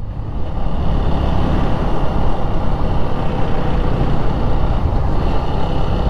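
Motorcycle on the move: a steady run of engine and road noise, with wind rushing over the rider's microphone.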